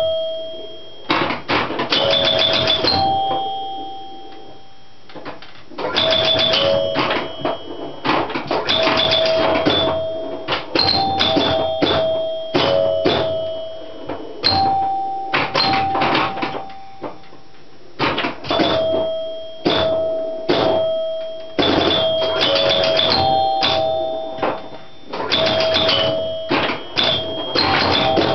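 1971 Gottlieb Sheriff electromechanical pinball machine in play: flurries of rapid mechanical clicks and clacks with chime bells ringing out as points score, broken by short lulls.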